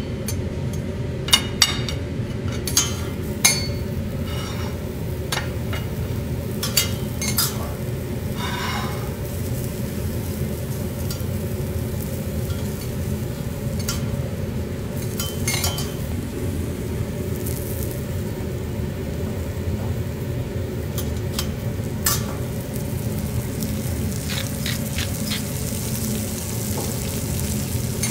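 Food sizzling steadily on a steel teppanyaki griddle, with the chef's metal spatula and knife scraping and tapping on the steel plate now and then, most often in the first few seconds.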